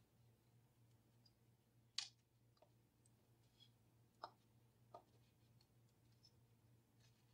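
Near silence with a faint low hum and a few short, faint clicks and rustles, the sharpest about two seconds in, as floral tape is wrapped around a wire flower stem.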